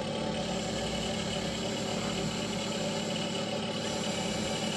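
Simulated engine idle played by the onboard sound system of a 1/16 scale RC landing craft through its small speaker, running steadily without change.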